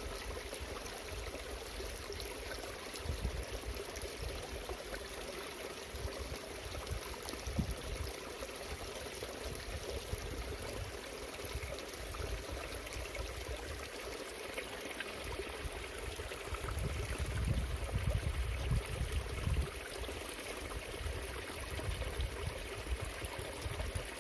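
Steady rush of water flowing along a ditch, with occasional low rumbles on the microphone, heaviest about two-thirds of the way through.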